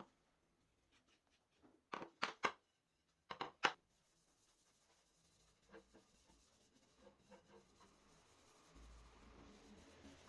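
Short scraping knocks in two quick groups, about two and three and a half seconds in, then faint rustling.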